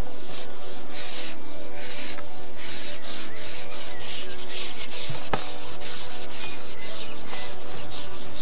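Carbon fishing pole sections rasping as they are slid back through the hands and over the pole roller, in repeated strokes about two or three a second while a hooked carp is played. There is one sharp knock about five seconds in.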